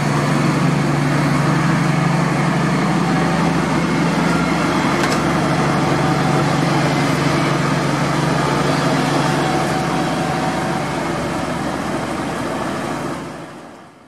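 A DB class 218 diesel locomotive's MTU 12V 956 TB 11 V12 engine running steadily with the locomotive at a standstill. The sound fades out near the end.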